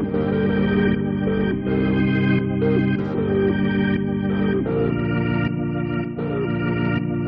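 Background music: a sustained organ-like keyboard playing held chords that change about every second, with no vocals.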